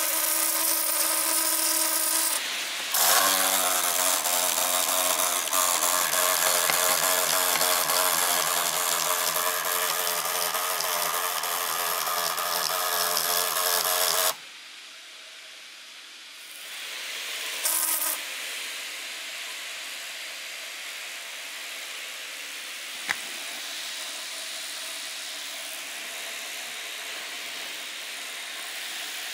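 MSI GP66 Leopard laptop's right cooling fan grinding loudly with a buzzing whine, then cutting off suddenly about halfway through, leaving the fans running with a steady airy whoosh and a single click later on. The grinding is the sign of a malfunctioning fan that jams, which the uploader suspects has weak or loosened blades.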